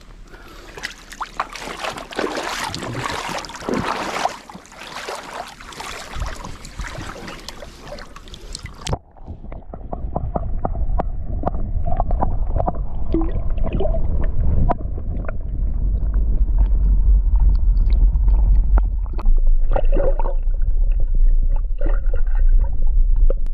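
Water splashing and sloshing as freshly caught fish are let go back into the lake. After a sudden change about nine seconds in, a muffled low rumble with some gurgling.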